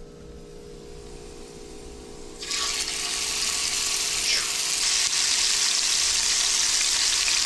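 Seasoned pieces of alligator gar going into hot oil about two and a half seconds in, setting off a sudden, loud, steady sizzle of deep frying.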